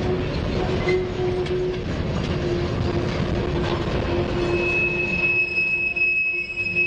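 Freight cars rolling past: steel wheels rumbling and clicking over the rail joints, with a steady wheel squeal and a second, higher squeal that joins in a little past halfway.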